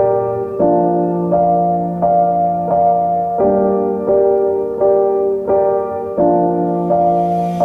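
Background piano music: a gentle keyboard pattern of sustained chords struck about every two-thirds of a second.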